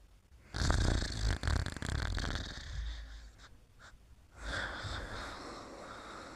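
Snoring during sleep: two long, noisy snoring breaths with a low rumble, the first starting about half a second in and the second about four seconds later.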